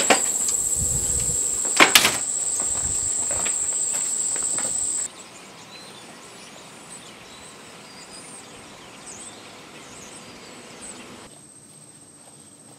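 Steady high-pitched chorus of summer insects trilling, with a sharp click at the start and a double click about two seconds in. It cuts off about five seconds in, leaving quieter outdoor ambience with faint bird chirps.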